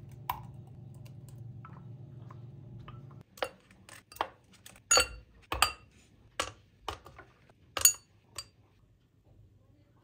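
Ice cubes clinking against drinking glasses of strawberry puree: about ten sharp, ringing glass clinks in the second half, the loudest of them near the five- and eight-second marks. Before them a steady low hum runs for about three seconds and then cuts off.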